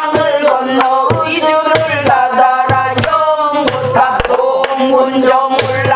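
A woman singing pansori in long, wavering held notes, accompanying herself on a buk barrel drum, which she strikes with a stick and her palm at uneven intervals throughout.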